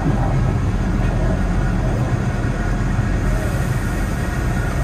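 Diesel railcar's engine running as the train moves along the track, a steady low rumble.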